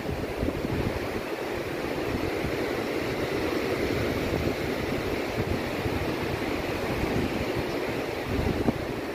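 Ocean surf breaking along the beach, a steady wash of noise, with wind buffeting the microphone in an uneven low rumble.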